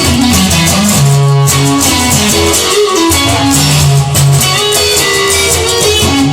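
Instrumental music led by guitar, with a bass line and a steady beat.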